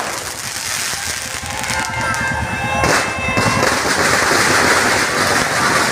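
Big street crowd cheering and shouting while firecrackers crackle in rapid strings, the popping growing denser in the second half.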